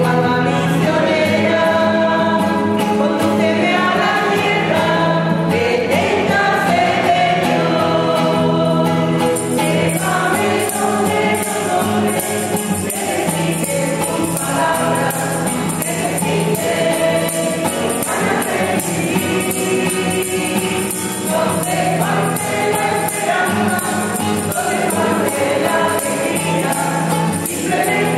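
A choir sings a hymn. About nine seconds in, a tambourine joins and is shaken steadily.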